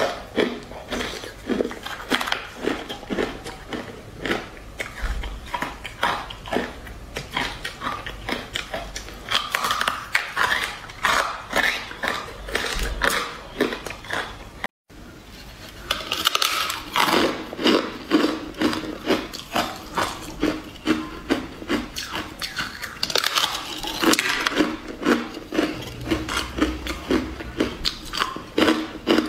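Close-up crunching and chewing of hard coloured ice, crisp cracks coming a couple of times a second. The sound drops out briefly about halfway through, then the crunching goes on.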